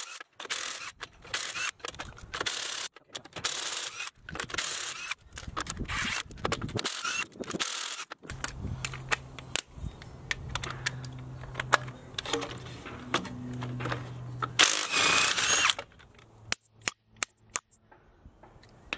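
Impact wrench zipping off a truck wheel's lug nuts: a string of short bursts, then a steadier low run, with a loud high-pitched whine and sharp clicks near the end.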